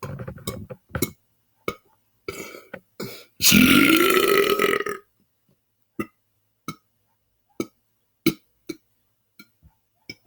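A man belching: one long, loud belch about three and a half seconds in that rises in pitch and lasts about a second and a half, with a few shorter sounds before it. A string of short sharp clicks follows.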